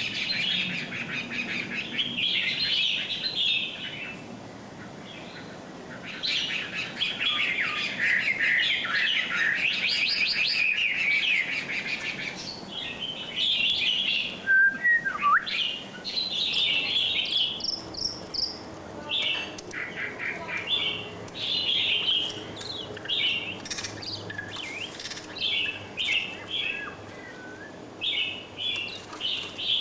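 Many small birds chirping and twittering together in dense, overlapping bursts with short pauses between them.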